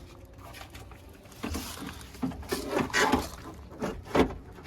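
Irregular knocks and clunks of a door latch and lock actuator assembly being worked up into a car's door shell, the loudest about four seconds in.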